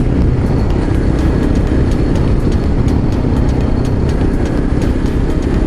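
Motorcycle engine running steadily at low speed, heard from the rider's own microphone with a heavy low rumble.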